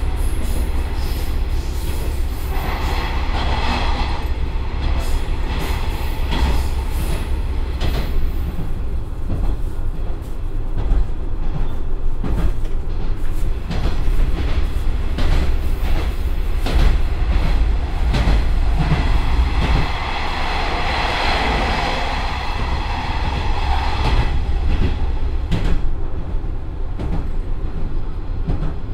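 Onboard running sound of a JR Shikoku 1500 series diesel railcar at speed, heard inside the passenger cabin. A steady low rumble comes from the running gear and its Komatsu diesel engine, with wheels clicking over rail joints. A higher-pitched whine swells twice, briefly about three seconds in and for several seconds about twenty seconds in.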